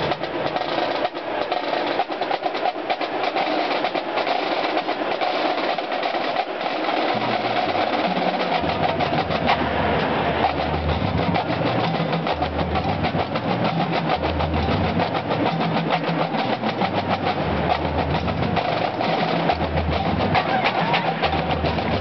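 Marching drumline of snare drums and tenor drums playing a fast, steady cadence. Deep bass drum beats join about eight seconds in.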